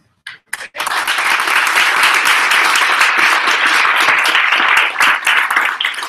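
Audience applauding: a few separate claps, then steady loud applause from about a second in.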